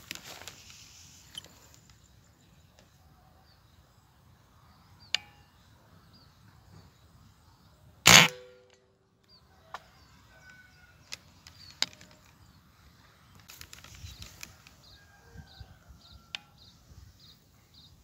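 A single shot from a Mauser OD28 PCP air rifle fitted with a Siliwangi OD32 moderator: one sharp crack about eight seconds in, the loudest sound by far. A few lighter clicks and faint bird chirps come before and after it.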